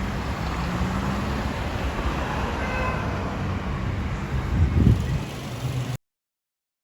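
Airbus A319 airliner cabin noise: a steady rumble of engines and airflow, with a brief low thump about five seconds in. The sound cuts off abruptly near the end.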